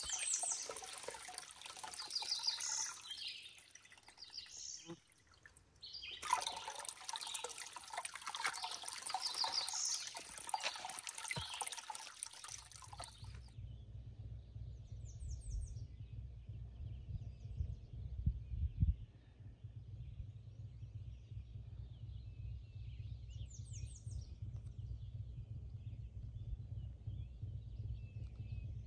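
Spring water pouring from a pipe into a cemented stone basin, with birds chirping. About halfway through it gives way to a low steady rumble with faint bird chirps.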